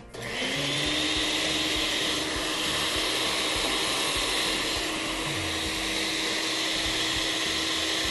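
Countertop blender running steadily, puréeing chicken broth, charred onion, guajillo chiles and garlic into a thin salsa. The motor spins up just after the start, then holds a steady pitch.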